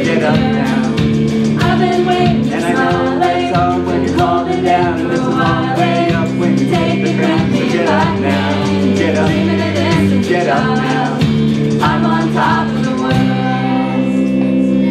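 Live band with guitar accompanying a group of voices singing the chorus of a song.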